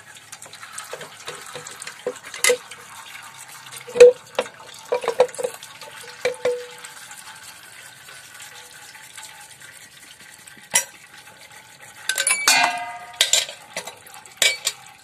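Metal clinks and knocks, some ringing briefly, as the right-side clutch cover of a Honda Revo Absolute is worked free of the engine case and lifted off. A short metallic clattering rattle follows near the end.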